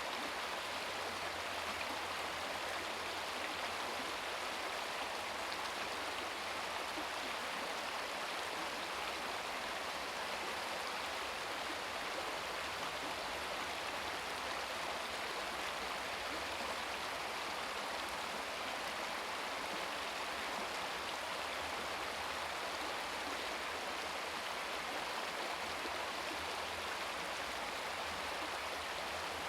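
Small brook babbling over stones: a steady, even rush and gurgle of running water that doesn't change.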